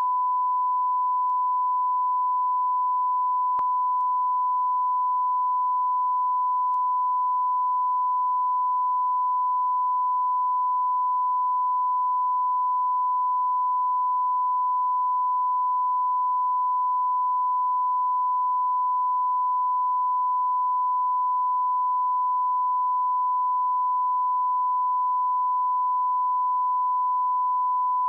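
Continuous 1 kHz line-up test tone, the reference tone that runs under colour bars at the head of a video. A single steady pitch that never wavers or breaks.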